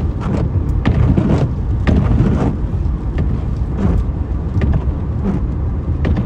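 Road noise inside a moving car: a steady heavy low rumble, broken by irregular knocks and thumps.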